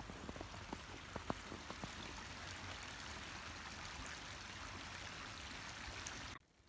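Small creek flowing, a steady rush of water, with a few faint crunches of snow in the first second and a half. The sound cuts off suddenly just before the end.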